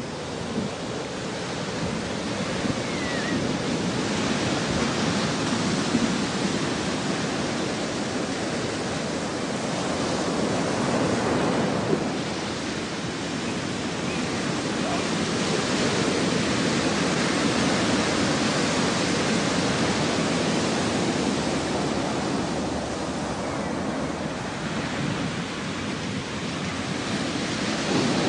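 Ocean surf: a steady rushing of waves that swells and eases every several seconds.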